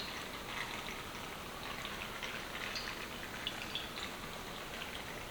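Olive oil being poured over cherry tomatoes in a baking pan: a faint, irregular pattering of small ticks and drips.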